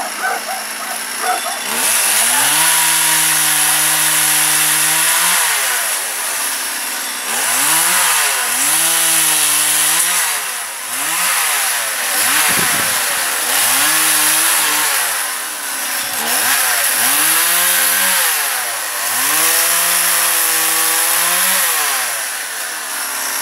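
STIHL MS 180 two-stroke chainsaw cutting walnut branches. It idles for about two seconds, then revs up and holds high revs through each cut, dropping back and revving up again and again. There is one sharp knock about halfway through.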